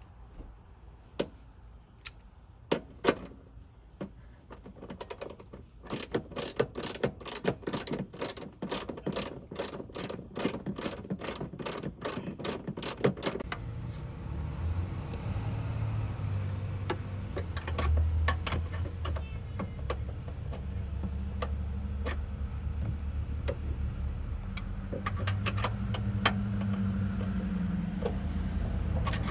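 Ratchet wrench clicking in quick, even strokes, about three a second, as a fastener for a hood strut mount is run in. Over the second half it gives way to a low rumble with scattered clicks and knocks.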